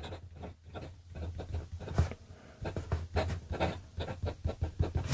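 A 3D-printed fountain pen with a fine Jowo #5 nib writing on grid paper: the nib scratches lightly across the paper in short, irregular strokes as letters are formed.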